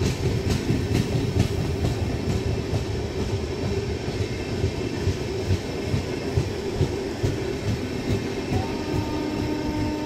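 Passenger coaches of an express train rolling slowly past on the track, their wheels clicking over the rail joints in a steady clickety-clack over a low rumble. A faint steady tone comes in near the end.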